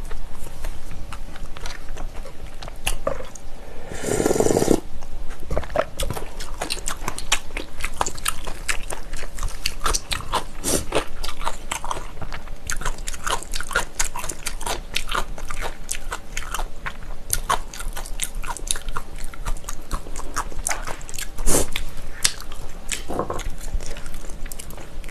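Close-miked chewing of a mouthful of spicy Korean food (capsaicin bibimbap, braised kimchi): a steady stream of small wet clicks and crunches, with a louder, longer mouth noise about four seconds in and a sharper louder click near the end.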